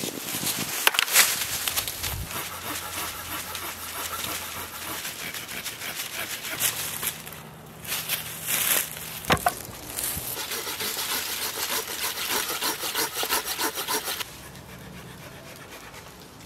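A dead branch dragged through dry leaves, then a hand saw cutting the dead wood in quick back-and-forth strokes, with a few louder cracks; the sawing stops suddenly near the end.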